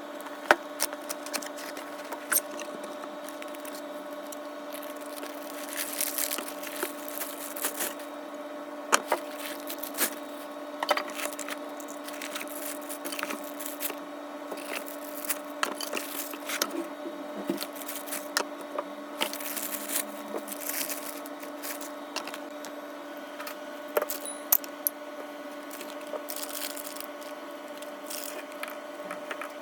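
Unboxing and handling of a monitor mount's parts: packaging rustling and scattered sharp clicks and knocks of small pieces being set down, over a steady low hum.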